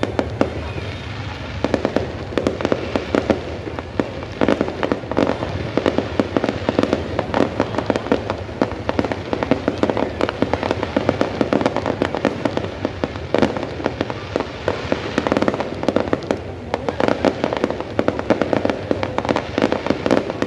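New Year fireworks display: a dense barrage of bangs and crackling bursts, thickening about two seconds in.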